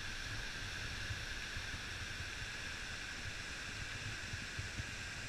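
Steady rushing noise of a nearby waterfall, with an uneven low rumble of wind buffeting the microphone.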